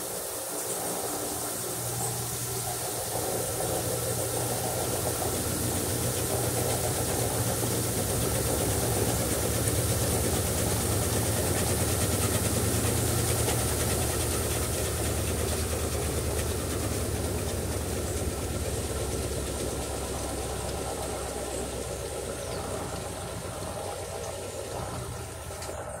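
Electrolux 15 kg top-load washing machine running, its motor humming steadily as the load of clothes turns in the tub. It grows louder toward the middle and eases off near the end.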